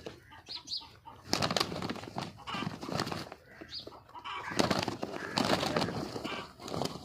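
Fighting roosters flapping and beating their wings, with irregular sharp strikes and rustling bursts.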